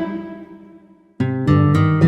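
Cute vlog background music: one instrumental track's last notes die away to near silence, and a new light instrumental track starts about a second in.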